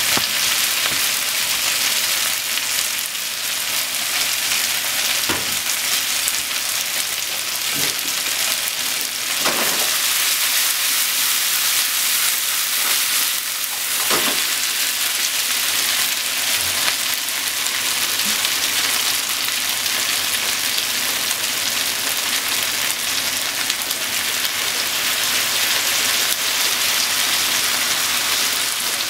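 Chicken, onion, green pepper and carrot sizzling steadily as they stir-fry in a frying pan over a gas burner, with a few scattered knocks as the pan and food are moved.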